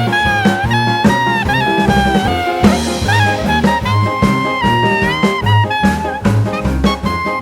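Background music: an upbeat jazz track with a brass or saxophone melody over a steady bass and drum beat.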